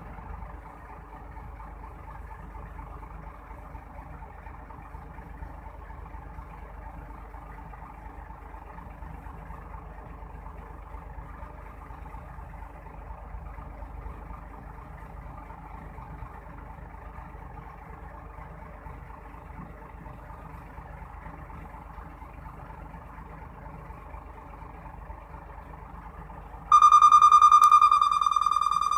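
Heavy diesel engines of a Hitachi Zaxis 350 excavator and a Scania dump truck running steadily as the excavator loads the truck. Near the end, a loud steady horn-like tone sounds for about two seconds.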